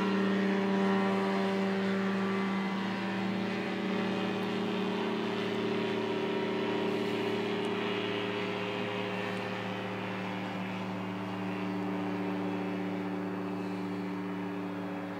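Rotax 503 two-stroke twin engine of a Thruster microlight in flight overhead, a steady droning note that slowly fades as the aircraft moves away.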